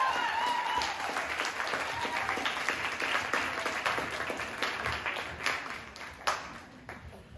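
Small audience applauding, with a cheer trailing off in the first second; the clapping thins out and dies away.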